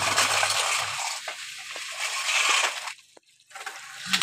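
Sand and grit scraping and rustling against the plastic bed of a toy dump truck as a hand brushes it out, with a few light knocks; it breaks off about three seconds in.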